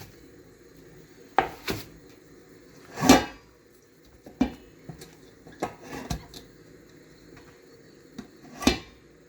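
Kitchen dishes and utensils being handled: a scattered series of about eight knocks and clinks, the loudest a longer clatter about three seconds in.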